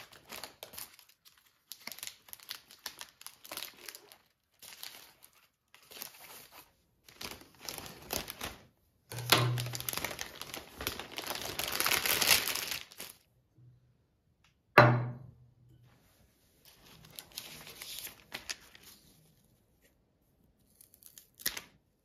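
Florist's wrapping around a bouquet crinkling and rustling in irregular bursts as it is pulled open and off the flowers, loudest between about nine and thirteen seconds in. A single sharp knock about fifteen seconds in.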